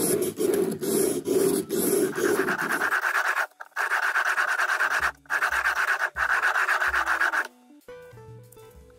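A fibreglass scratch pen rubbed back and forth on the metal wheel treads of a 1950s Tri-ang model locomotive, a scratchy scraping that scours dirt and corrosion off the wheels. The scraping stops about three-quarters of the way through, leaving soft background music with a few melody notes.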